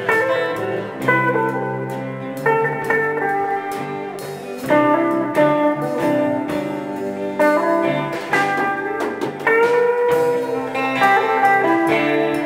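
Live band playing an instrumental break in a country-rock song: an electric guitar plays a lead line with bent notes over a strummed acoustic guitar and bass guitar.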